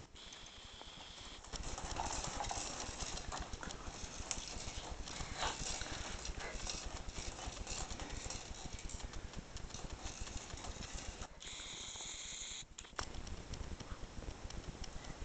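Baby bouncing in a hanging baby jumper: a rapid, irregular patter of taps and knocks from the jumper's seat and straps and small feet pushing off a wooden floor.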